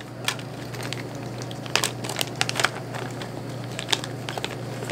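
Clear plastic packaging bag crinkling and crackling in the hands in scattered, irregular bursts as a toothpick is dug out of it, over a low steady hum.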